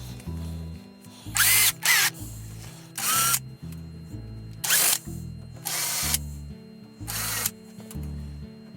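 Power drill running in about six short bursts, each under half a second and carrying a brief whine, over background music with a steady beat.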